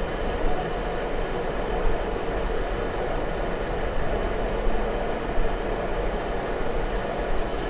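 Jeep Wrangler V6 engine idling steadily with a cylinder 4 misfire (code P0304) that stays in that cylinder after the coil and injector were swapped. The technician puts it down to a fault inside the engine.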